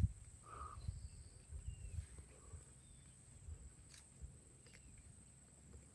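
Faint outdoor ambience: an uneven low rumble that dies down after the first couple of seconds, a steady high insect drone, and a few faint bird chirps.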